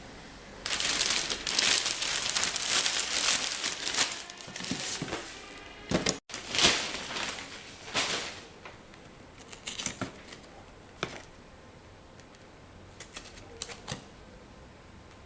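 Packaging being opened and handled by hand: dense crinkling and rustling for several seconds, a second burst about six seconds in, then a few scattered light clicks and taps.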